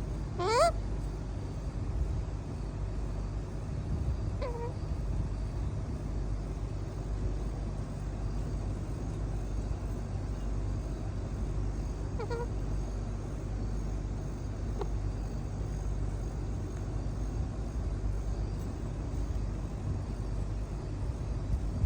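Pet parrot giving a few short calls that sweep up in pitch, the loudest about half a second in and fainter ones around four, twelve and fifteen seconds in, over a steady low rumble.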